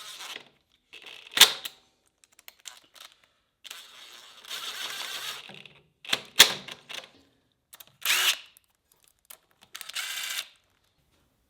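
Hand-tool work while fitting a part onto a dirt bike: a few sharp metallic clicks and knocks with stretches of scraping and rattling between them.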